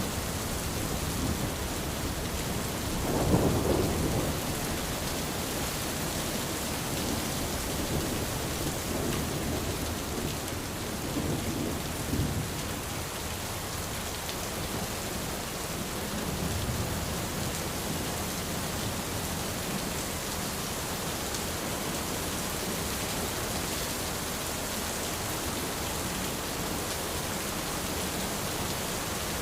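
Steady rain falling on an umbrella, with low thunder rumbling several times, most strongly about three seconds in.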